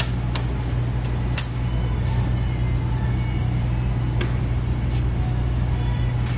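Wire shopping cart rolling across a hard store floor: a steady low rumble from the wheels, with a couple of sharp clicks in the first two seconds.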